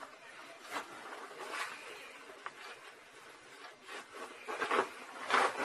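A leather jacket rustling and swishing as it is pulled off, in several short brushing sweeps, the loudest near the end.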